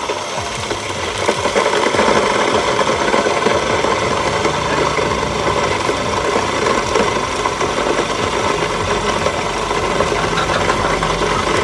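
Electric disc grain mill grinding dry corn kernels into meal: its belt-driven motor runs steadily under a dense, gritty grinding rattle, a little louder from about a second and a half in.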